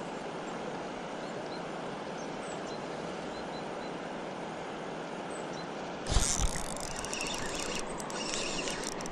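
Spinning reel cranked steadily during a lure retrieve, under a steady hiss. About six seconds in, a loud knock and rustle as a hand handles the camera, then scattered clicks.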